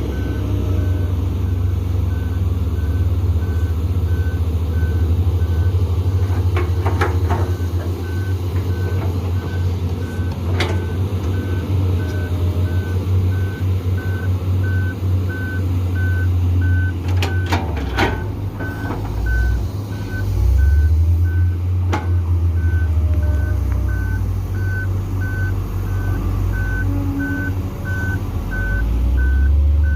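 Heavy diesel engines of an excavator and trucks running with a steady low rumble, under a reversing alarm beeping about once a second throughout. A few sharp clanks come in the middle and near the two-thirds mark.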